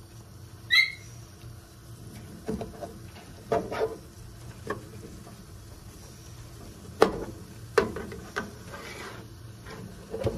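Sliced roast beef, onions and peppers sizzling on an electric griddle, with a utensil knocking and scraping against the griddle several times. A short high-pitched squeak about a second in.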